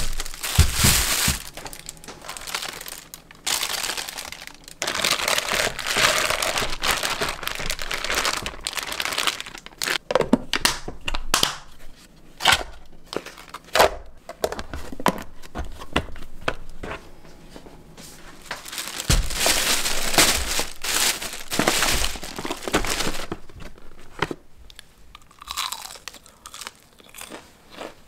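Plastic and paper bags rustling and crinkling, with plastic food containers being handled, in irregular bursts.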